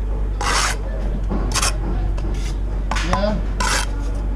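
Steel brick trowel scraping mortar against brick: four short, rasping strokes, over a steady low rumble.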